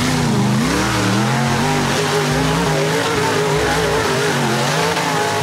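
Tube-chassis rock buggy's engine revving hard under load as it claws up a steep dirt gully, its pitch rising and falling over and over.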